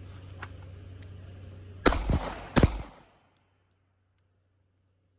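Two pistol shots about 0.7 s apart, each sharp and loud with a short ringing tail, from a Taurus handgun being fired on a range.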